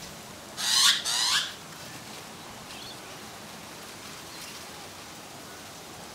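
Australian magpie giving two harsh, loud calls back to back about a second in, with a couple of faint chirps later.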